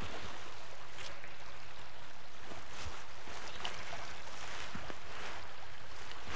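Steady rushing outdoor noise of a riverbank, with a few faint clicks about a second in and again near the middle.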